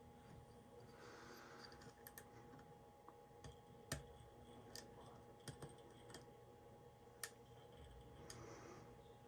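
Faint, scattered clicks and light scraping of a lock pick and tension wrench working the pins of a Kenuard 5-pin dimple lock, with the sharpest click about four seconds in.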